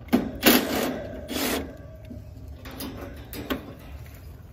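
Cordless driver spinning out the screws on an air-conditioner condenser's sheet-metal access panel: short bursts of driving noise, loudest in the first second and again about a second and a half in, followed by smaller clicks and rattles.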